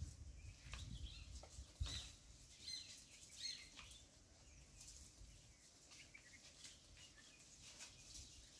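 Near silence: faint open-air ambience with a few short, faint bird chirps about three seconds in and a low rumble in the first two seconds.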